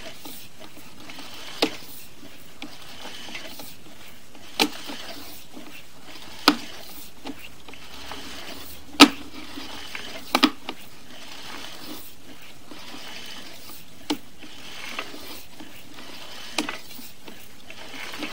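Sewer inspection camera's push cable being reeled back out of the drain line: sharp, irregularly spaced knocks and clacks, about eight of them, the loudest about halfway through, over a steady low hiss.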